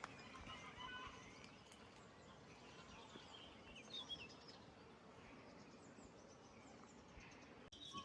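Faint outdoor garden ambience: a steady low hiss with a few scattered short bird chirps, a cluster near the start and another about four seconds in.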